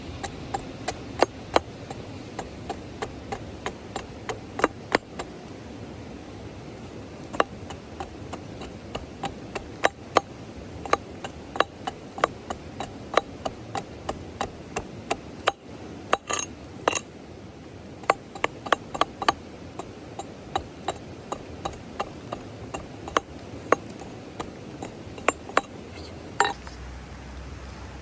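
Irregular sharp clicks and knocks, a few each second with short pauses, over a steady hiss.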